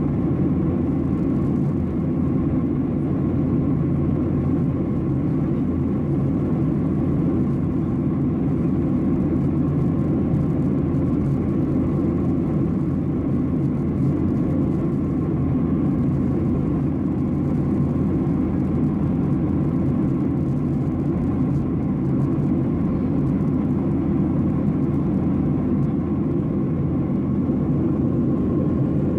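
Steady in-flight cabin noise of a Boeing 737-800 heard from a seat over the wing: the CFM56 jet engines and the airflow make a low, even rumble with a faint steady hum above it.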